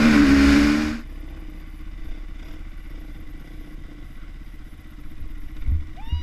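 KTM Six Days dirt bike engine running at speed with heavy wind rush, then cut back suddenly about a second in and left idling with a low, uneven rumble. A couple of low thumps near the end.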